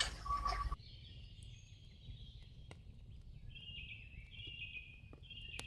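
Faint outdoor ambience with birds chirping high and thin, and a few sharp clicks scattered through it.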